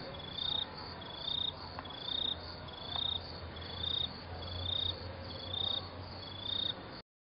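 A cricket chirping steadily, a short high chirp about once a second, over a faint low hum; the sound cuts off abruptly near the end.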